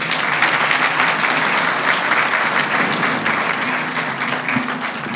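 Audience applauding: a roomful of people clapping, starting at once and dying away near the end.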